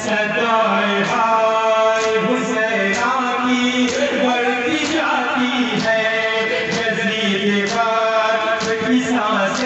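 Men chanting a Shia lament (noha) together, with a sharp slap of hands beating chests in time about once a second: matam.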